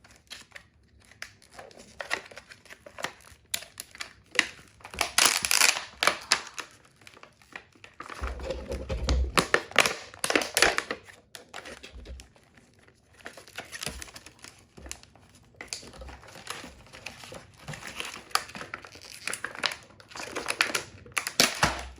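Packaging of a smoke and carbon monoxide alarm being pried and torn open by hand: irregular crinkling and tearing, with a few dull thumps partway through as the packaging resists.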